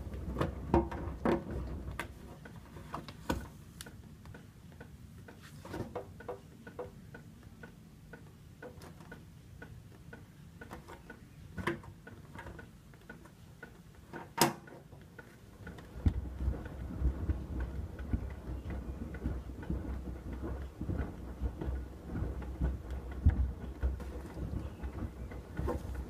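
Hoover WDYN 11746 PG8 washer-dryer drum turning a foamy rinse load of rugs and shoes, with irregular knocks and clicks from the load inside the drum. The drum's low rumble drops away for a stretch, then comes back about two-thirds of the way through with more frequent knocks.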